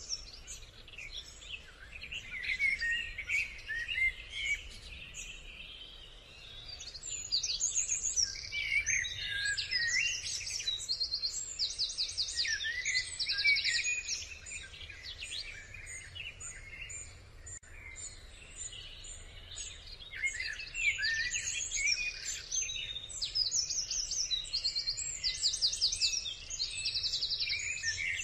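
Many high chirping calls mixed with short, rapid trills that recur every few seconds, over a faint low rumble.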